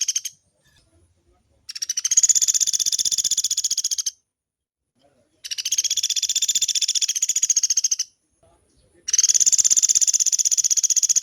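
A pelatuk beras woodpecker giving long, fast rattling calls, each about two and a half seconds of rapid high notes. One call ends just after the start, and three more follow at roughly one-second gaps.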